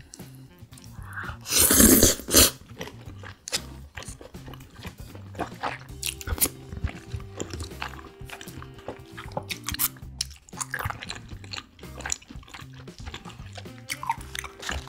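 Close-miked chewing and biting of raw seafood, with frequent short crunchy clicks, over soft background music. A brief loud burst of noise comes about two seconds in.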